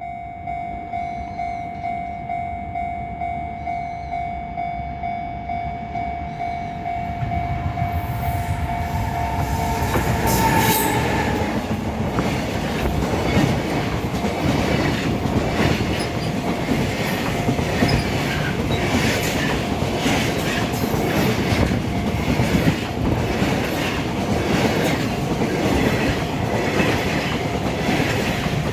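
Level crossing alarm ringing in a steady pulsing pattern, then a freight train arrives about eight seconds in and runs through the crossing, its wagon wheels clattering rhythmically over the rail joints while the alarm keeps sounding underneath.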